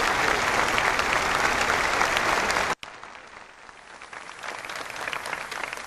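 Large crowd applauding. The loud applause cuts off abruptly about three seconds in, and fainter applause follows, swelling slightly near the end.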